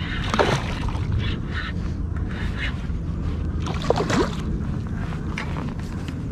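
Steady wind buffeting the microphone, with a hooked fish splashing and thrashing at the water's surface about half a second in and again about four seconds in.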